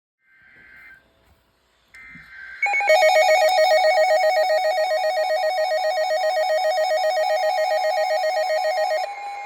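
Emergency Alert System tones: two short buzzy data bursts of the SAME header in the first three seconds, then a loud warbling attention tone that trills like a ringing telephone. About nine seconds in it changes to a steady tone.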